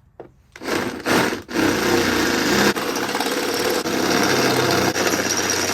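Power drill with a 7/16-inch bit boring a bolt hole for a door hinge: a short burst about half a second in, a brief pause, then a steady run of about four and a half seconds.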